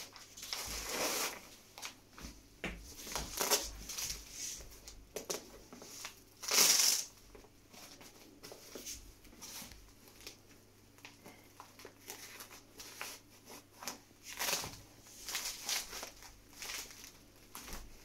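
Velcro straps on a straitjacket being ripped open and pressed shut, with fabric rustling: a string of short tearing bursts, the loudest about six and a half seconds in, and a quick run of them near the end.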